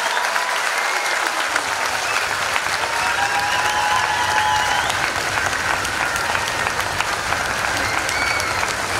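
Steady applause from the audience and the performers on stage, with a few voices heard over it.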